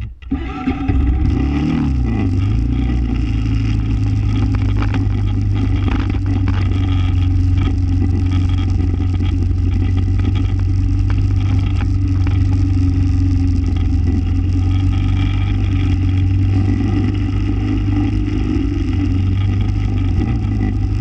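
Small off-road vehicle's engine starting up and revving briefly in the first couple of seconds, then running steadily while the vehicle rides along.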